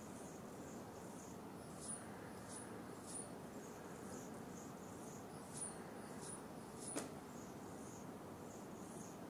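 Faint outdoor birdsong: short high-pitched chirps, some higher and some slightly lower, repeating irregularly about once or twice a second. One sharp click about seven seconds in.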